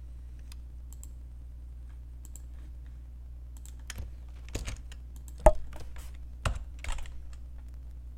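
Computer keyboard being typed on in a few scattered keystrokes, mostly in the second half, the loudest about halfway through, over a steady low hum.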